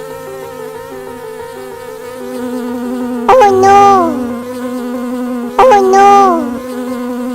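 Buzzy, droning music of held, stepping tones, cut through twice by a loud, drawn-out cry that holds its pitch and then slides down, the two cries about two seconds apart.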